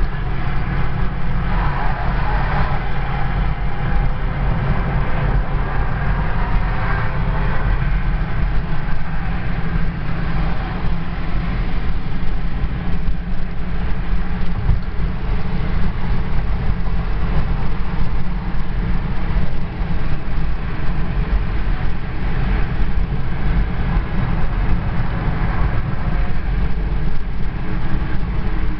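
Steady road noise heard from inside a moving car at highway speed: a continuous low rumble of tyres and engine.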